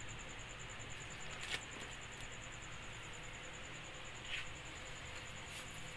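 Quiet room tone: a low steady hiss with a fast, even, high-pitched pulsing over it, and two faint clicks, about a second and a half in and again a little past four seconds.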